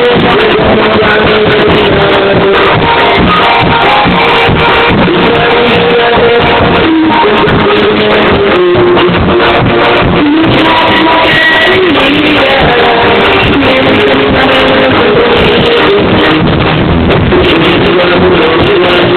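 Loud live band music played through a concert sound system, heard from within the crowd.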